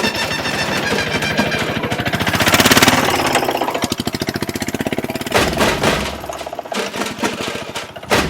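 Engine-like fast, even pulsing, as of a small vehicle motor, with steady tones over it; it grows louder toward the middle.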